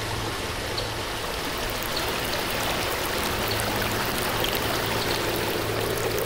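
Steady running-water ambience, like a trickling stream, with scattered small drips and a faint low drone underneath.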